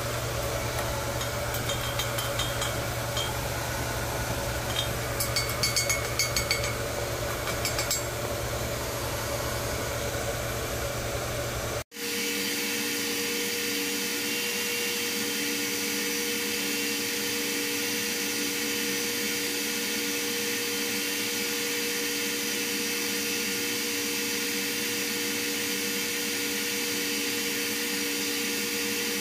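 Steady drone of workshop machinery and ventilation, with a few light clicks about five to eight seconds in. It cuts off abruptly a little before halfway and gives way to a steadier hum with two held tones.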